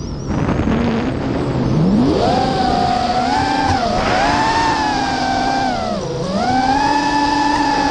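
Lumenier QAV-R FPV racing quadcopter on a 6S lipo: its brushless motors and propellers whine, with the pitch following the throttle. The pitch rises steeply about two seconds in, dips sharply around six seconds as the throttle is cut in a loop, and climbs back again.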